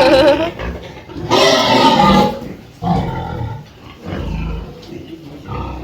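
Pigs vocalising: a wavering squeal at the start, then a loud harsh squeal lasting about a second, followed by shorter, lower grunts.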